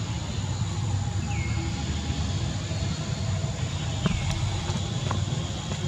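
Steady low rumble of outdoor background noise, with a few faint short high chirps that fall in pitch, one about a second and a half in and one near four seconds, and a couple of faint ticks.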